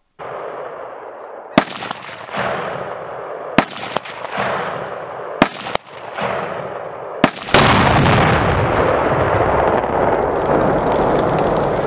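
Large pyrotechnic charge packed in a plastic tub going off: a steady hiss with four sharp cracks about two seconds apart, then a big blast about seven and a half seconds in, followed by a long, loud rumbling rush.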